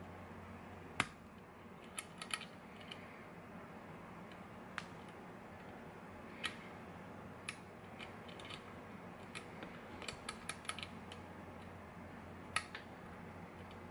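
Small metal clicks and ticks from a short hook pick working the pin stack of a GeGe lock under tension, irregular and spaced out, with quick clusters of clicks about two seconds in and again around ten seconds in.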